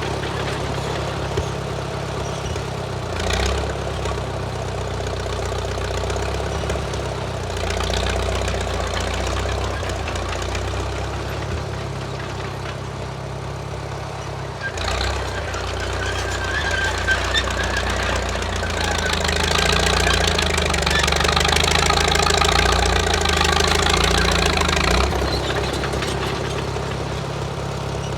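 1934 Caterpillar bulldozer's engine running under load, with a few sudden knocks. The engine swells louder and busier about two-thirds of the way through.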